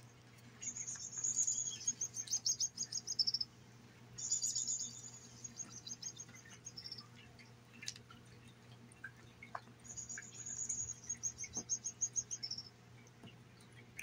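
Toy robin's electronic bird call set off by a cat's pawing and biting: three bouts of rapid high chirps, each lasting two to three seconds and stepping down in pitch, starting about a second, four seconds and ten seconds in.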